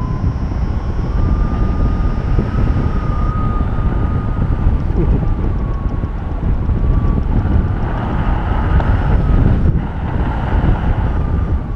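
Wind rushing hard over the microphone of a paraglider in flight, with a thin whistling tone that wavers slowly in pitch throughout.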